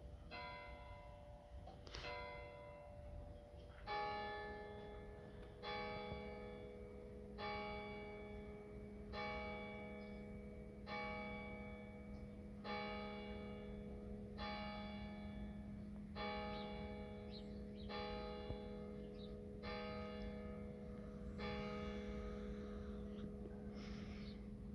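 Church tower clock bells striking: two strokes of a higher bell, then about eleven evenly spaced strokes of a lower bell, one every second and three quarters or so, each ringing on as it fades. A low steady hum runs beneath from the third stroke on.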